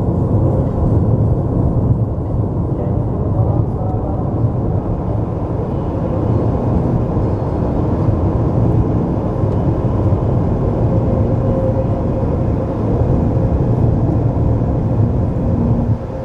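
Steady road noise inside a car cruising at motorway speed: tyre noise and engine hum that change little throughout.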